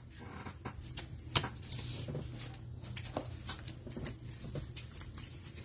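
A stack of trading cards in rigid plastic top loaders being shuffled in gloved hands: a string of faint, light plastic clicks and sliding, over a low steady hum.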